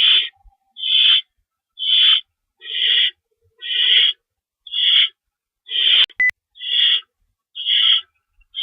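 Male barn owl giving harsh, hissing screech calls over and over, about one a second, after chasing off an intruding owl. A brief sharp click cuts in about six seconds in.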